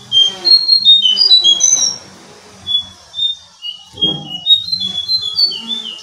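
Jongkangan songbird singing a rapid string of short, high chirping notes, breaking off about two seconds in and starting again.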